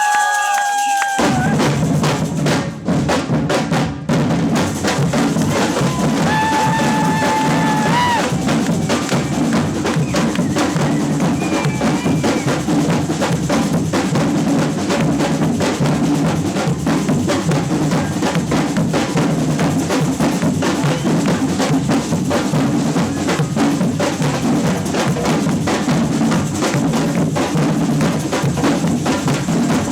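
A samba percussion band playing a funk groove on bass drums and snares. The drums come in together about a second in, after a moment of crowd noise, and keep a dense, even rhythm. A held high tone that rises at its end sounds for about a second and a half, about six seconds in.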